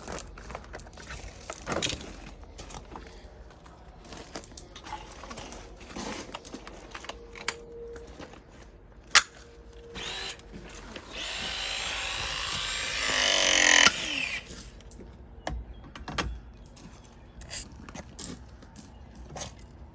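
Work noises: scattered knocks and clicks of tools and parts being handled, and a power tool, likely a drill, running for about three seconds in the middle, louder toward the end before it cuts off.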